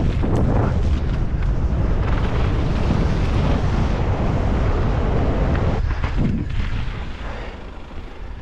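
Wind buffeting the microphone and tyres rumbling over a muddy trail as a mountain bike is ridden fast downhill. The rush eases near the end.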